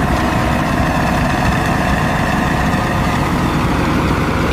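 Road roller engine running steadily at a low, even rumble.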